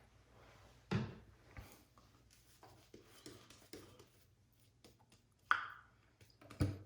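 Shaving brush working wet soap lather: soft, irregular brushing and squishing, with a few brief louder handling sounds about a second in, around five and a half seconds, and near the end.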